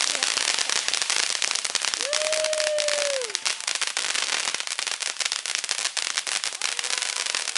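Dense, rapid crackling pops of firecrackers going off without a break, with one long held tone about two seconds in that drops away at its end.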